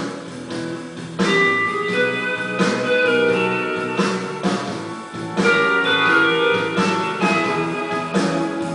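Music with guitar playing, steady throughout.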